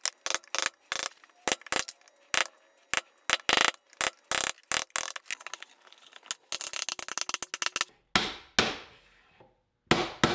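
Wooden mallet striking a chisel to chop out dovetail waste in Douglas fir: many sharp knocks in quick runs, thickening to a rapid patter about two-thirds of the way in. Near the end come four heavier, spaced knocks, each with a short ring, as the mallet taps a wood block to seat the dovetail joints.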